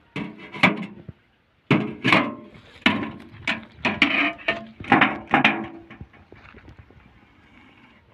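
Snake hook and lid knocking against a stainless steel box as the lid is worked open: about a dozen sharp metallic clanks and rattles with short ringing over some five seconds, then quieter.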